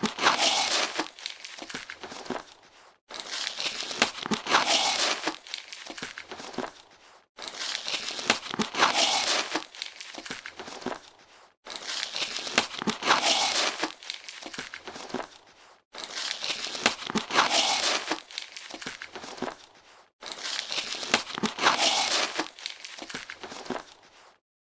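Cardboard box being opened, with the seal tape and flaps giving a crinkling, tearing sound. It comes in about six blocks of some four seconds each, with short gaps between them, each loudest near its start.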